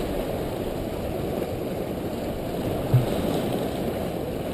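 Waves washing over jetty rocks with wind buffeting the microphone: a steady low rush of surf and wind. A brief low sound stands out about three seconds in.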